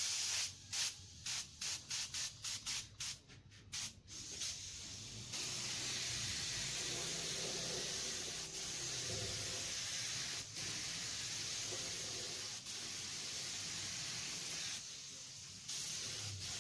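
Gravity-feed compressed-air spray gun spraying clear coat onto a car body panel. It starts as about a dozen quick short hisses in the first four seconds, then becomes a steady hiss that eases off briefly near the end.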